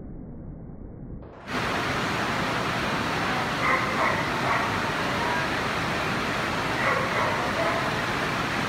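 A dog barking in two short bursts, a few seconds apart, over the steady hubbub of a large indoor show hall. Near the start the hall noise is muffled; about a second and a half in it jumps suddenly to louder and fuller.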